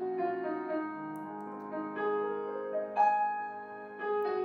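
Soft background keyboard music: sustained piano-like chords and single notes, with a new note struck every second or so.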